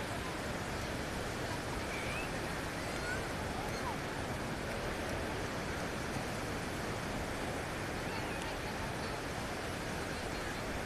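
Steady, even wash of sea surf on a beach, with a few faint short calls or chirps above it.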